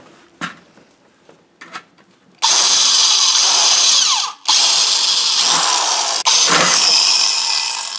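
Electric drill boring through a phosphor-bronze breastplate sheet to make holes for a ring mount. A few light handling clicks come first; about two and a half seconds in, the drill starts and runs loud in three long stretches, with two short breaks.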